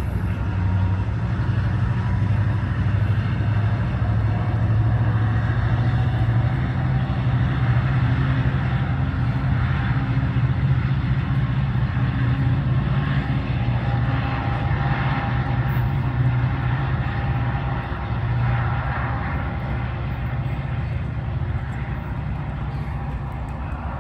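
MARC MP36 diesel locomotive's 16-cylinder EMD 645 engine working hard as it pulls the train of bi-level coaches away: a steady, loud, low engine drone that eases off slightly near the end as the train recedes.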